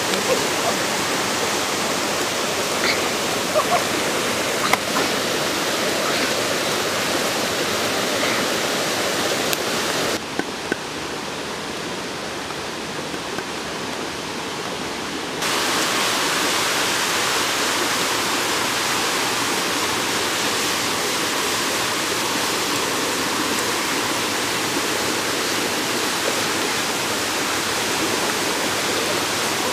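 Steady rushing of a waterfall and stream, an even hiss of moving water. For about five seconds around the middle it drops slightly and sounds duller. A few faint knocks come in the first seconds.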